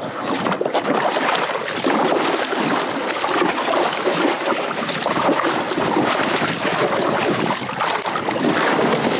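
Water splashing and churning as a hooked roosterfish thrashes at the surface beside the boat, with wind buffeting the microphone.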